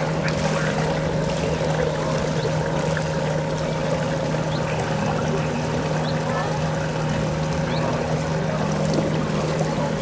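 A steady motor hum holding an even pitch, with faint voices in the background.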